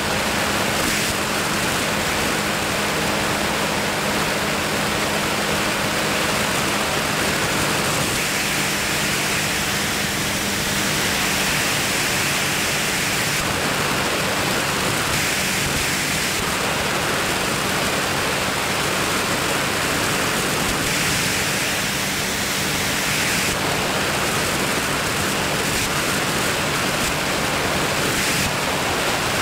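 Steady rushing wind noise from the airflow in gliding flight, even and unbroken, with a faint low hum beneath it.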